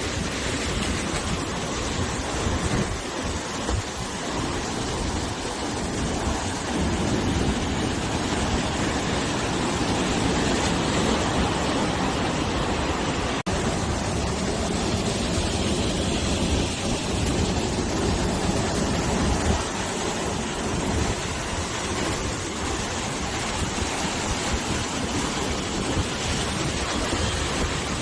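Sea waves washing onto the shore, a continuous rushing that swells and eases every few seconds, with wind blowing across it. There is a brief dropout about halfway through.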